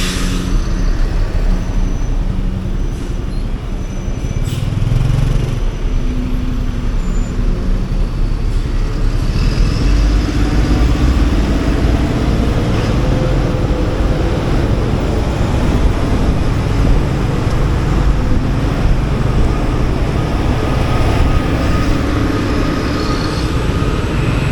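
Motorcycle engine running while riding in city traffic, with the rumble of surrounding vehicles; the low engine and road noise grows louder from about ten seconds in.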